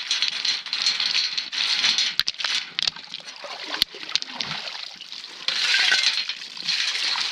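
A shovel scooping wet creek gravel and tipping it into a bucket: stones clink sharply a few times, with water splashing and sloshing over a steady wash of water. There is a louder rush about five and a half seconds in.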